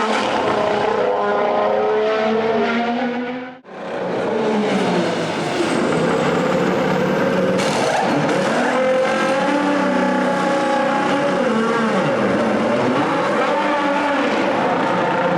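Honda RA619H 1.6-litre turbocharged V6 of a 2019 Formula 1 car running at speed, its pitch rising and falling with throttle and gear changes. The sound dips away briefly about three and a half seconds in, then comes back.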